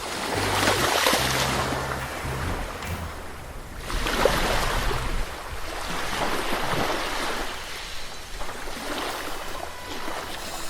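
Caribbean sea waves washing onto the shore, the surf swelling and easing three times.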